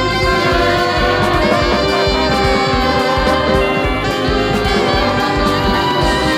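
Background music with a steady beat and many pitched instruments playing.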